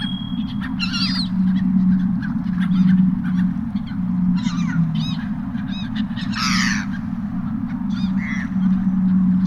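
Seagulls calling, a string of short squawks with the loudest about six and a half seconds in, over a steady low hum.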